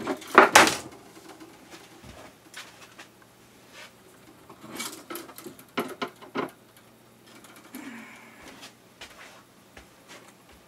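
Hands handling the plastic filament spools and the clear enclosure panel of a 3D printer: irregular knocks, clicks and rustles, loudest in a burst right at the start and again in a cluster about five to six seconds in.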